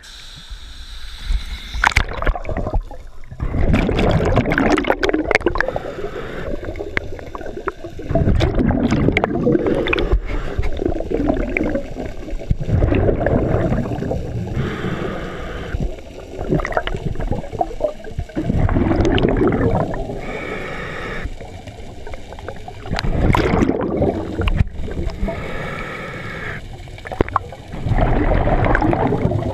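Scuba breathing heard underwater: loud bursts of exhaled regulator bubbles every four to five seconds, with a higher hiss from the regulator on each inhale between them. A splash about two seconds in as the camera goes under.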